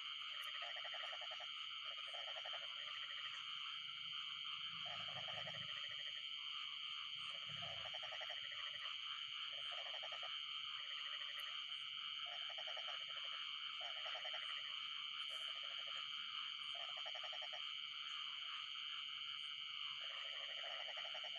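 Steady high-pitched night chorus of frogs and insects. Below it, a frog croaks in short pulsed calls that repeat about once every second or two.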